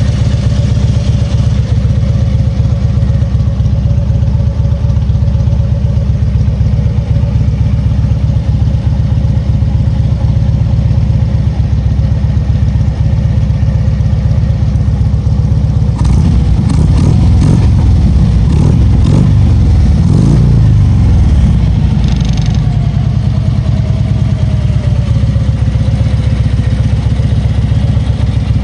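Harley-Davidson Street Glide's Twin Cam 103 V-twin idling through Cobra aftermarket mufflers. A little past halfway it is revved several times in quick succession, then it settles back to idle.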